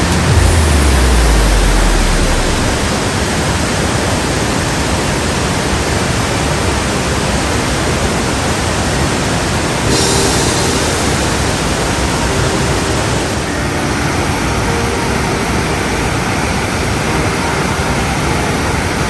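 Waterfall rushing: a loud, steady roar of heavy falling water, with the river running high and muddy after rain.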